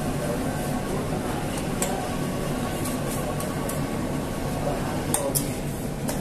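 Spiral dough mixer running, its motor giving a steady hum as the hook kneads a large batch of bread dough, with a few sharp clicks and clinks around the bowl.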